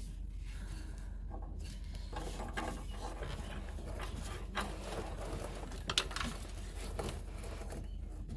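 Hand tools working on a car: irregular metallic clicks and knocks, with a few sharper ones in the second half, over a steady low hum.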